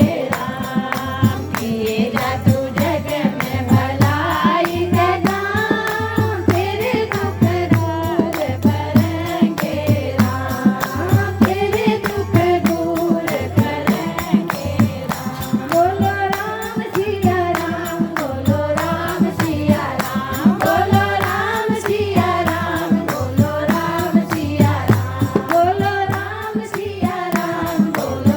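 Hindu devotional bhajan singing with a percussion accompaniment keeping a steady beat.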